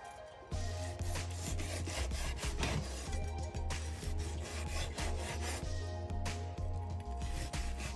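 Kitchen knife sawing back and forth through a cooked ribeye steak in repeated rasping strokes, the blade rubbing on a wooden cutting board. Background music with a pulsing bass runs underneath.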